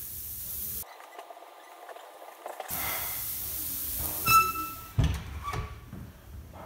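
Raw burger patties sizzling on a grill grate over hot wood-stove coals, then the stove's door swung shut: a ringing metallic clang about four seconds in and a heavy thump a moment later, followed by a couple of smaller knocks.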